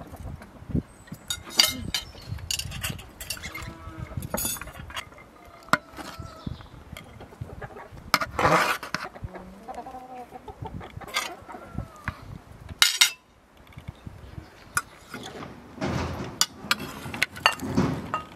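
Metal serving skimmer and spoons clinking and scraping against ceramic plates and a metal platter as rice is served, with chickens clucking now and then.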